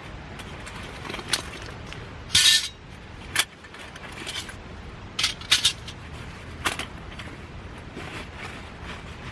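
Metal gear being handled, clinking and clattering several times. The loudest clank comes about two and a half seconds in with a short metallic ring, and a quick double clink follows a little after five seconds.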